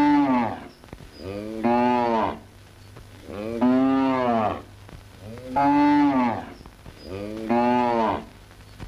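A cow mooing: five long calls about two seconds apart, each rising and then falling in pitch.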